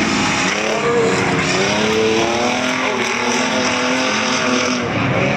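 Several streetstock race cars racing round the track, their engines revving up and down at different overlapping pitches, with faint tyre skidding.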